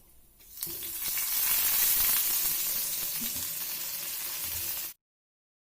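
Hot coconut oil sizzling as curry leaves go into a tempering of mustard seeds, urad dal and dried red chillies. The sizzle starts about half a second in, swells, holds steady, then cuts off abruptly near the end.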